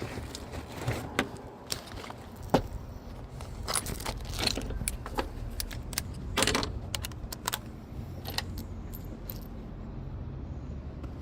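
Small metal pieces clinking and jangling as they are handled during a gate-latch repair, in irregular sharp clicks that thin out near the end, over a steady low rumble.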